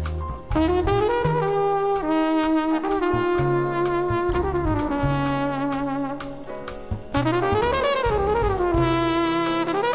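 Jazz trumpet playing a slow solo line of held notes, scooping into some of them, with one note that bends up and falls back about eight seconds in. Low bass notes change underneath.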